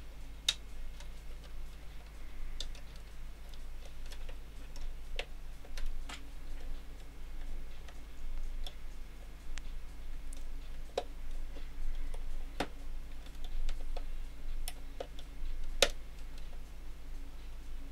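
Irregular sharp plastic clicks and small creaks as the snap-fit plastic case of a femtocell is worked open with fingers and a plastic pry tool, a click every second or so, over a steady low hum.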